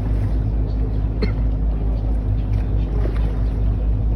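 River tour boat's engine running steadily, a constant low hum with a steady drone over it.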